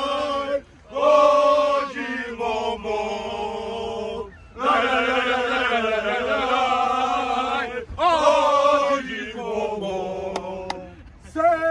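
A group of men singing a football supporters' chant together in unison, in long held phrases broken by short pauses.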